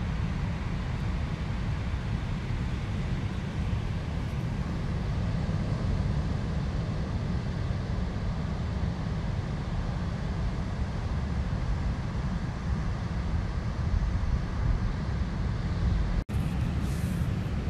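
Steady low rumble of outdoor noise, heaviest in the bass and without any clear engine tone, with a brief drop-out about sixteen seconds in.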